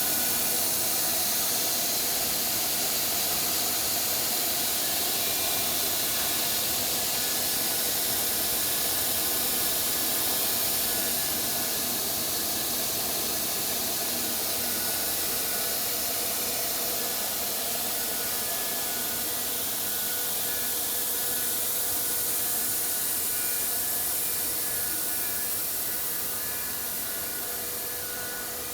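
Woodworking CNC router spindle running and cutting, a steady high hiss with a faint steady whine through it. It eases off slightly a few times.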